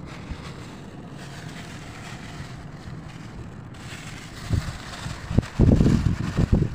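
Wind buffeting the microphone: a light steady rush at first, then heavy low rumbling gusts in the last two seconds.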